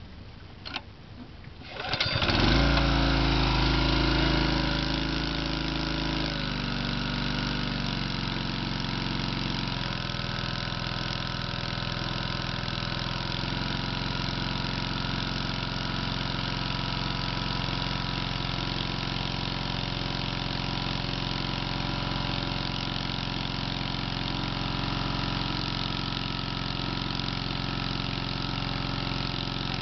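Small gasoline engine of a floating hookah dive air compressor starting about two seconds in, loudest just after it catches, its note shifting a few times before it settles into steady running.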